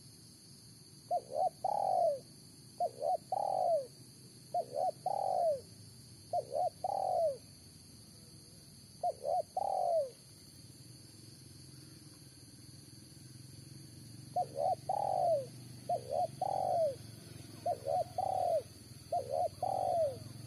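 Decoy spotted dove (tekukur) cooing. Its call is a crisp three-note phrase, two short notes and then a longer falling one, repeated about every one and a half to two seconds, with a pause of a few seconds midway through.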